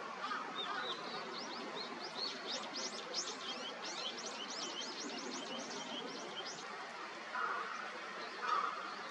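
A rapid run of thin, high bird chirps, densest in the middle and stopping about two-thirds of the way through, over a steady outdoor background hiss. Two short, lower, harsher calls follow near the end.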